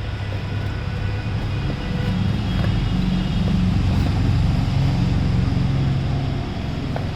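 A motor vehicle engine running nearby with a steady low hum. It grows louder about two seconds in and eases off again near the end, like a vehicle passing.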